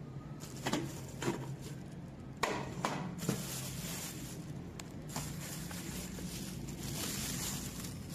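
Clear plastic wrapping crinkling and rustling as an electric cooker is handled and unwrapped, with a few sharp knocks and clatters in the first few seconds.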